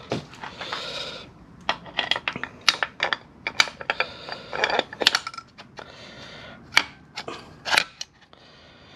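Irregular metal clicks and clinks as a clutch release bearing is handled into place on its sleeve over the input shaft in a Mazda RX4 four-speed transmission's bell housing and fitted to the release fork.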